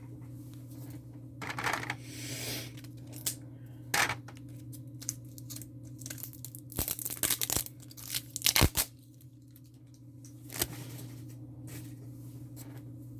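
Diamond painting kit packaging being torn open and handled: irregular bursts of tearing and crinkling with several sharp clicks, the loudest about two thirds of the way in, over a steady low hum.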